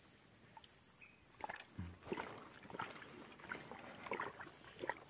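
Faint footsteps crunching on dry, stony dirt, about three a second, starting about a second and a half in. Before them there is near silence with a faint steady high insect buzz.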